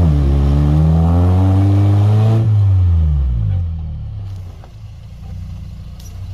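Suzuki Jimny's engine revved hard and held high while it climbs a steep mud slope, then the revs fall away about two and a half seconds in and it runs on low and quieter, with a couple of faint clicks near the end.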